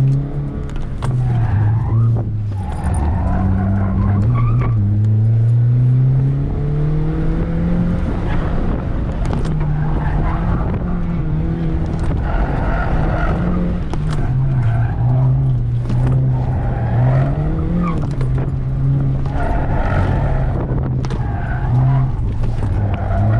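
Honda Fit's four-cylinder engine pulling hard through an autocross run, its pitch rising and dropping repeatedly as it accelerates and lifts between corners. The tires squeal through the turns.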